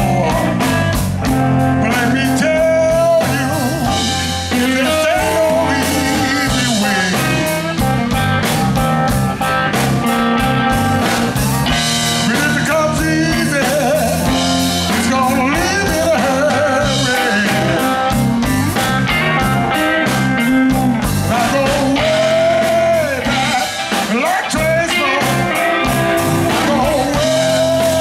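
Live blues band playing a steady groove: guitar over bass and drums, with a singing voice.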